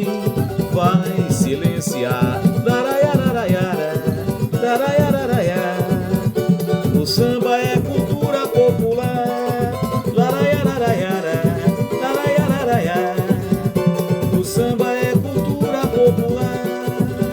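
Samba song: a voice sings a wordless 'la la la' melody over a shaker rhythm and plucked strings.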